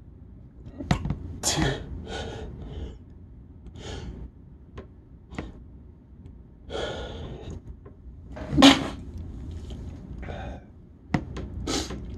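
A person getting over a cold breathing in sharply and sneezing: several short, breathy gasps and sniffs, with the loudest burst, a sneeze, about two-thirds of the way in. A few sharp clicks follow near the end.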